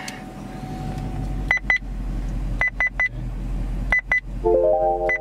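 Car's electronic chimes: short high beeps, mostly in pairs, sounding repeatedly from about a second and a half in, with a brief multi-note tone near the end, over the low hum of the idling engine.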